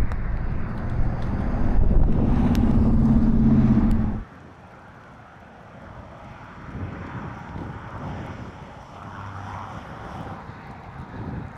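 Chase vehicle's engine and road noise while driving, which cut off suddenly about four seconds in. After that there is fainter wind noise.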